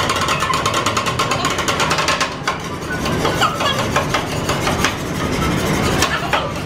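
Two metal spatulas chopping rapidly on the stainless-steel cold plate of a rolled-ice-cream maker, a fast, steady clatter of metal striking metal, many strikes a second.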